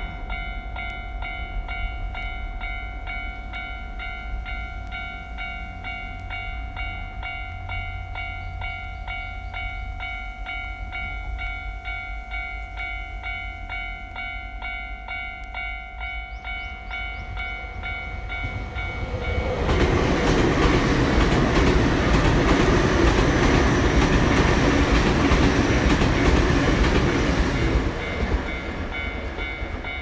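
Japanese level-crossing alarm bell ringing in a steady, even rhythm. About twenty seconds in, a Nankai Koya Line train passes over the crossing: a loud rumble of wheels on rail lasts about eight seconds and drowns the bell, which then rings on.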